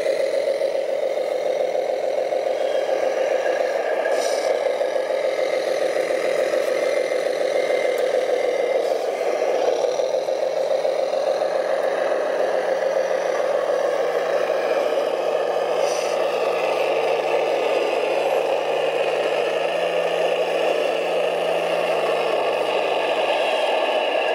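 1:14 scale radio-controlled dump trucks driving through mud, running steadily with a rattle. In the second half a low engine-like hum shifts up and down in pitch in steps.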